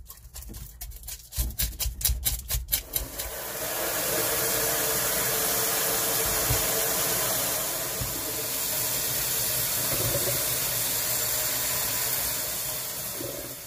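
Quick, repeated scraping strokes of a red sea bream's tough scales being scraped off. About three seconds in, a steady rush of running tap water takes over for about ten seconds, then fades.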